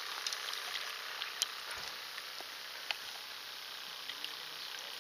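Faint steady outdoor background hiss with a handful of small, sharp ticks and clicks scattered through it, the clearest about a second and a half in and just under three seconds in.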